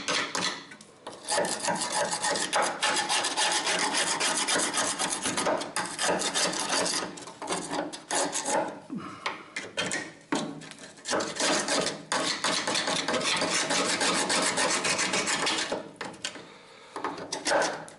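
Small metal tailgate hardware being scraped or scrubbed by hand in rapid back-and-forth strokes, cleaning it to check it for rust. There are two long runs of strokes with a short pause between them.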